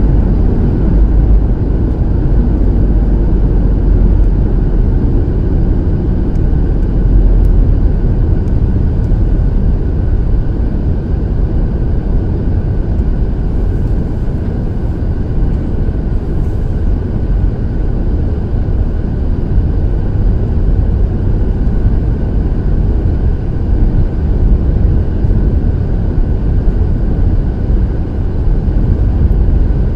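A car driving on a snow-covered road, heard from inside: a steady, low rumble of road and engine noise.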